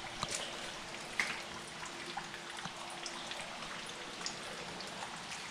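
Water dripping: scattered small drips and ticks over a steady hiss, with a faint steady hum underneath.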